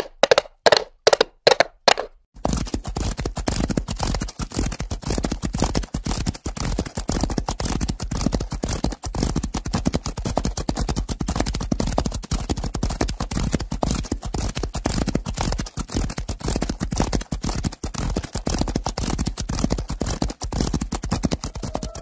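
Hoofbeats of a galloping horse, about three strikes a second, each clearly separate. About two seconds in they give way to a dense, unbroken drumming of many horses' hooves galloping together.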